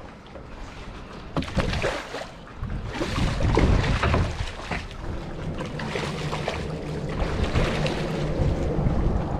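A hooked red drum thrashing and splashing at the water's surface as it is fought in and scooped into a landing net, loudest about three to four seconds in, over low wind rumble on the microphone.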